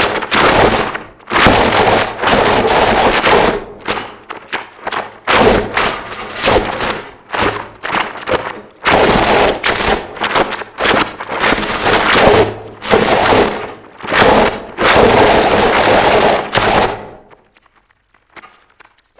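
Harsh noise music: dense, loud, distorted full-range noise in abrupt stuttering blocks that start and cut off suddenly, ending about three-quarters of the way through, after which only faint crackles remain.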